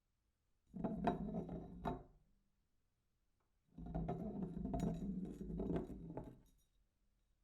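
Glass beer bottle rolling across a hard surface, a low rumble with small clinks and rattles, in two rolls: a short one about a second in and a longer one of about three seconds after a pause.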